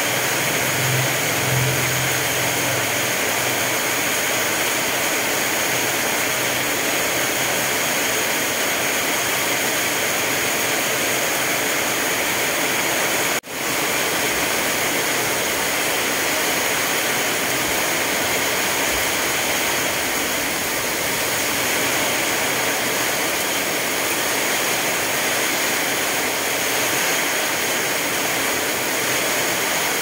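Steady hiss of rain and running water, unbroken except for a brief cut-out about halfway through.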